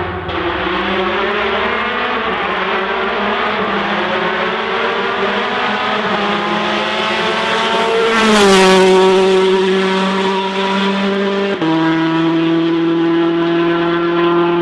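Rally car engine at high revs approaching and passing close by, loudest about eight seconds in, its pitch dropping as it goes past. The pitch steps down again a few seconds later and holds steady.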